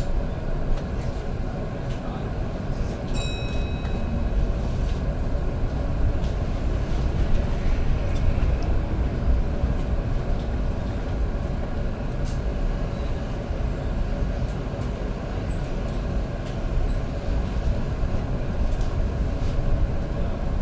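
Bus in motion heard from inside the passenger saloon: a steady low rumble of engine and road. A short high electronic tone sounds about three seconds in.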